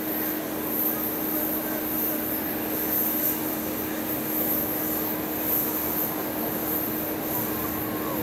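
Su-30MKM fighter's twin AL-31FP turbofan engines running steadily as the jet taxis, an even rushing jet noise with no rise or fall in power.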